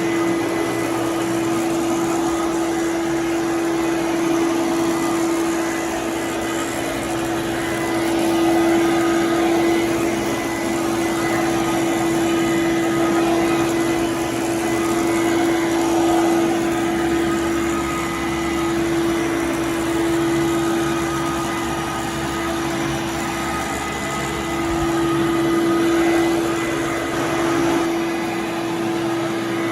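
Fantom Domestic 11-amp vacuum cleaner running continuously while vacuuming, a steady motor tone under a rush of airflow. Its loudness rises and falls a little now and then.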